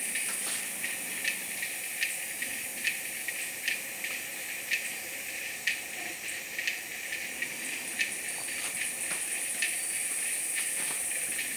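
Rainforest ambience dominated by a steady high-pitched insect chorus, with a second chirring band lower down and short sharp ticks about once a second.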